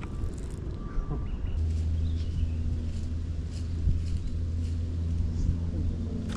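A boat motor starts running about one and a half seconds in and carries on as a steady low hum, over low wind rumble on the microphone.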